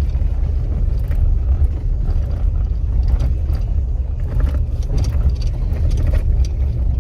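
Road noise inside a moving vehicle on a rough road: a steady low rumble with scattered knocks and rattles as it goes over bumps.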